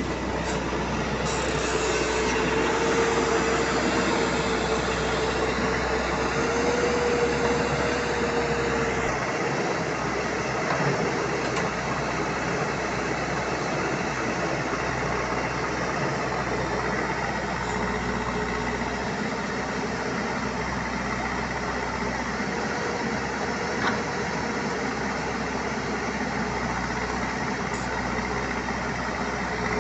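Heavy diesel engine running steadily under work. A thin steady whine rides on it from about two seconds in to nine seconds, fades, then returns later.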